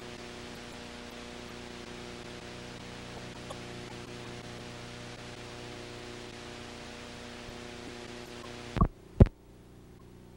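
Steady hiss with a low electrical hum from the audio track of a silent home-movie transfer. Near the end come two loud clicks about half a second apart, after which the hiss drops away and only a fainter hum is left.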